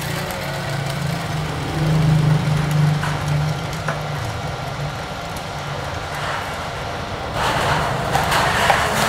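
Small Diamen drum coffee roaster running during the cooling stage: a steady motor hum with fan noise as the stirring arm turns the freshly roasted beans in the perforated cooling tray. About seven seconds in, the noise grows louder and brighter.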